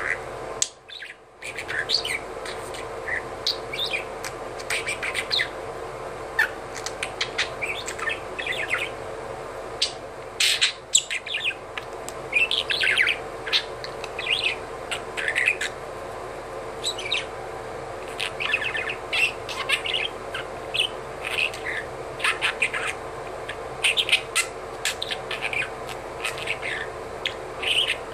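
Budgerigar mumbling: a rambling, irregular stream of soft chirps and warbles, over a steady background hum.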